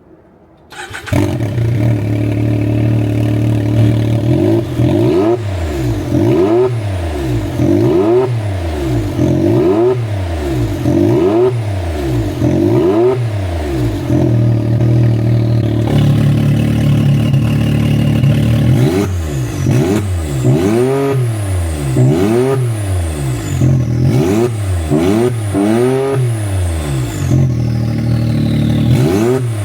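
Can-Am UTV engine through an RPM aftermarket exhaust, idling briefly and then blipped over and over, each rev rising and falling about every second and a half. About halfway through, the exhaust note changes as the exhaust valve setting is switched, and the later revs carry a faint high whistle that rises and falls with each one.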